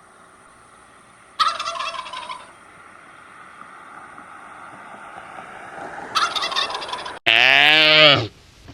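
Turkey gobbling twice, each a rattling call about a second long. Near the end, after a sudden cut, a loud drawn-out call from another animal rises slightly in pitch and then falls.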